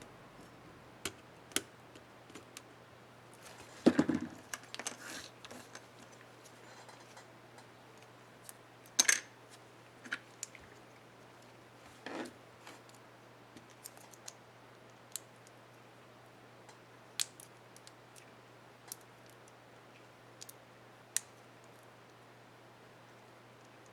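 Sparse small plastic clicks and snaps as a laptop Shift keycap and its retainer clips are handled and fitted on the keyboard, with louder clusters of clicks about four seconds in and again near nine and twelve seconds. A faint steady low hum lies underneath.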